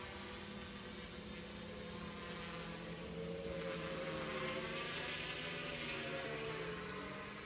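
Homebuilt 450-size quadcopter's Turnigy motors and propellers humming overhead, a steady whir whose pitch slowly shifts as it manoeuvres. It grows louder about halfway through and eases off near the end.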